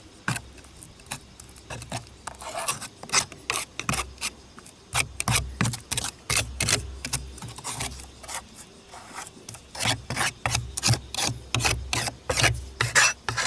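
Ceramic roof tiles scraping and clicking against each other in quick, irregular strokes as they are worked into place, with dull knocks mixed in.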